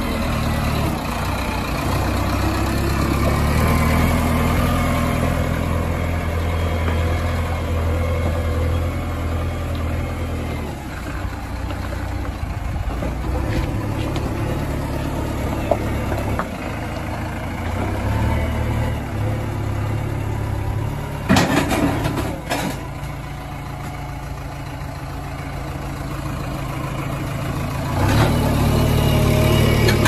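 JCB 3DX Xpert backhoe loader's diesel engine running under working load, its note swelling and easing in stretches. A short clatter of knocks comes about 21 seconds in.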